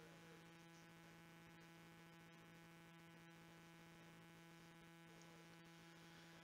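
Near silence: a steady low electrical hum in the room tone.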